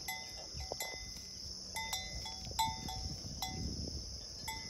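Steady high-pitched insect chorus, with short chirping notes repeating over it every half second or so and a faint low rumble underneath.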